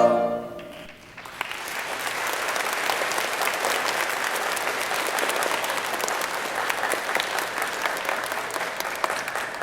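The last held chord of a choir fades out in the hall's echo, and about a second in the audience starts applauding steadily.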